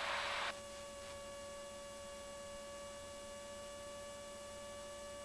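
Steady electrical hum with several faint fixed whining tones in a light aircraft's intercom audio feed. A hiss cuts off suddenly about half a second in, leaving only the hum.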